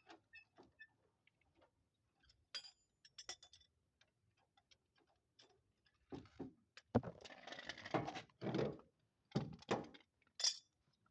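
Faint metallic ticks and clinks of hand tools working on a wheel, as the van comes down off the jack for its wheel nuts to be tightened. About six seconds in they give way to a few seconds of louder scraping and knocking, ending in several sharp knocks.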